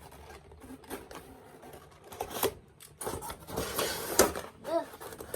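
Cardboard and plastic toy packaging being handled and pulled apart: scattered clicks and short rustles, busiest in the second half.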